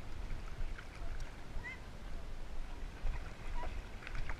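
River water sloshing and lapping around a camera mounted on a swimming dog's back as the dog paddles, with a steady low rumble.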